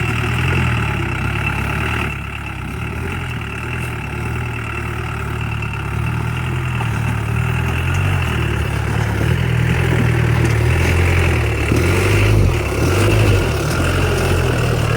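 Mahindra 4x4 jeep engine running steadily, quieter about two seconds in, then gradually louder, with the engine note shifting up and down near the end as it works under load.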